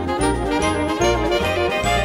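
Background music score: a tune of sustained pitched notes with short high notes over a steady bass beat of about three pulses a second.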